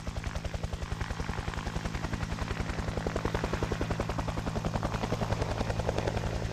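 UH-1 Huey helicopter in flight: its two-bladed main rotor beating in a fast, even wop-wop of about ten blade slaps a second over a steady low hum from the engine and drivetrain.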